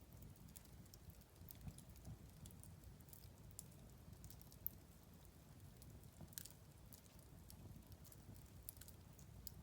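Wood fire crackling faintly: scattered sharp pops and ticks over a low steady rumble of the flames, with one louder pop about halfway through.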